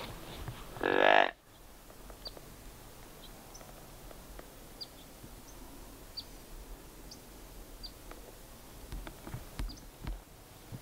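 A single short, loud call with a low, moo-like pitch about a second in. After it come scattered faint, high, short chirps and a few soft thumps near the end.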